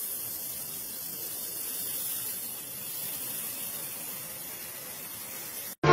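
Steady spraying hiss as a rusty steel hex nut is cleaned, cutting off suddenly near the end.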